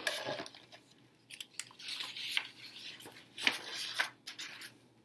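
Paper rustling and crackling as a picture book's page is handled and turned, with several sharp scrapes and clicks.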